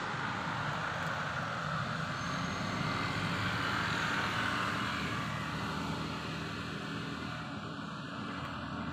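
Distant engine noise, a steady rush with a low rumble that swells about four seconds in and then eases off, as of something passing by.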